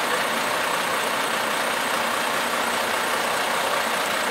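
Lorry engines idling in a stopped queue, a steady running noise with no breaks.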